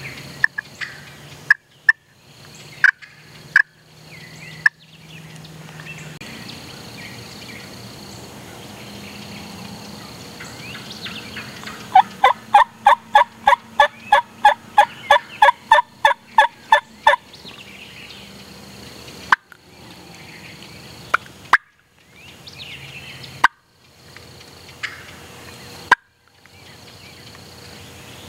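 Wild turkeys calling: a run of about twenty evenly spaced notes, some four a second, lasting about five seconds midway through, with scattered short, sharp calls before and after.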